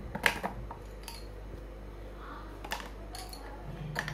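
Pens and pencils clicking and clattering as they are handled on a hard floor and dropped into a cardboard box: a sharp click about a quarter of a second in is the loudest, with a few lighter taps spread through.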